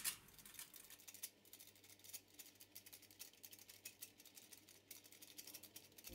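Very faint, irregular light ticks as powdered sugar is dusted over a loaf cake.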